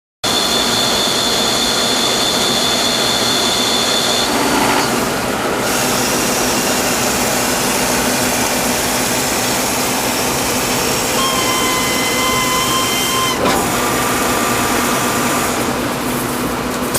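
Gundrilling machine running, a steady loud machining noise with faint whining tones that shift a few times.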